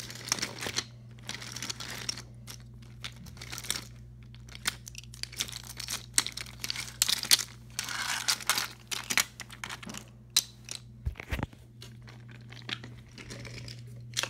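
Toy trains and wagons handled and pushed about on carpet: irregular plastic clicks, knocks, scrapes and rustling over a steady low hum.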